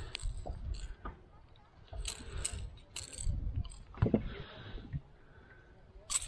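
Irregular clicks, rattles and rustling as a golden perch is unhooked from a lure in a landing net, with a sharper knock about four seconds in.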